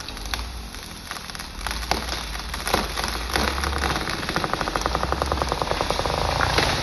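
Wood cracking and snapping again and again as the hard maple is felled, over a steady low engine rumble. A quick even run of clicks comes in about halfway through.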